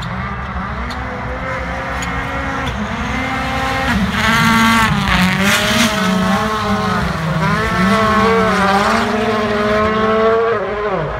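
Rally cars' engines revving hard as they slide through the snow, the pitch climbing and dropping again and again with throttle and gear changes. They grow louder about four seconds in as the cars pass close, and one engine note drops sharply near the end.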